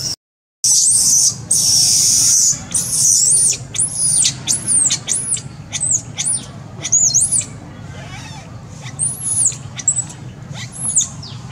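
Baby macaque screaming in distress: a string of shrill, high-pitched cries that rise and fall, about one or two a second. The cries are a hungry infant calling for its mother.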